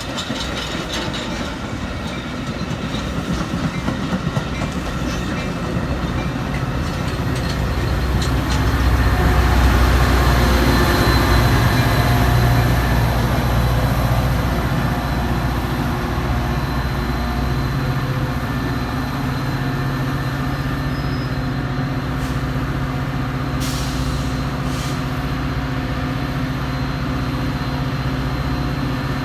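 Train rolling past, wheels clicking over the rail joints, with a low diesel locomotive engine drone that swells from about eight seconds in and then holds steady.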